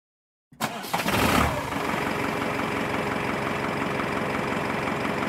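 A big truck's engine starting: after a brief silence it catches with a louder burst, then settles into a steady idle.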